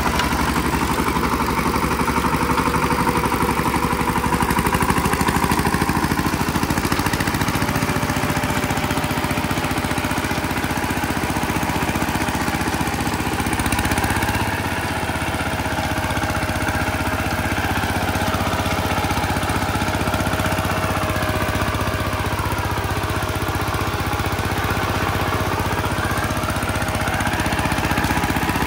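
VST Shakti 130 DI power tiller's single-cylinder diesel engine running steadily with an even pulsing beat.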